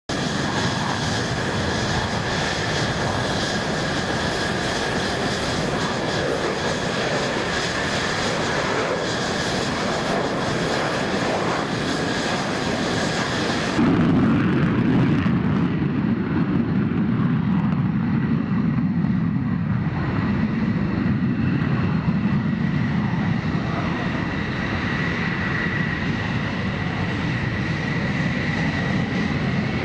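Jet fighters taxiing, engines running with a steady high whine over a broad rush: first F-16s, then after an abrupt change about halfway through, F-15E Strike Eagles passing with a louder, deeper rumble.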